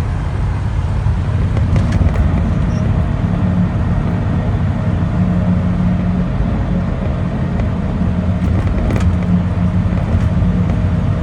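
Old pickup truck driving along the road, heard from inside the cab: a steady engine hum and road noise at a constant speed.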